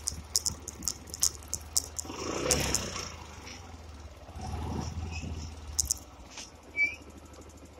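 Yamaha Gladiator motorcycle's single-cylinder engine running at low speed, with sharp rattling clicks in the first two seconds and again near six seconds. The engine sound swells and fades twice, and a short high chirp comes near the end.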